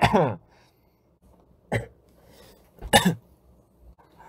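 A man coughing in three short, separate coughs: one right at the start, a brief one a little under two seconds in, and a stronger one about three seconds in.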